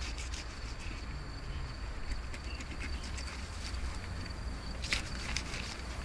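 A steady high-pitched insect drone over a low rumble of wind. Near the end come a few short crackling scrapes and rustles as a carp is gutted on newspaper.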